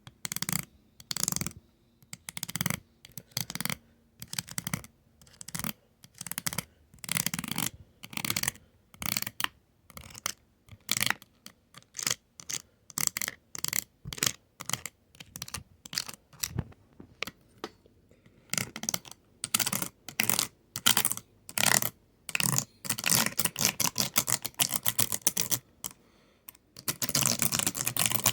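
Close-miked fast ASMR tapping and clicking: short bursts of rapid clicks about twice a second with brief silences between, growing denser near the end into nearly continuous fast tapping.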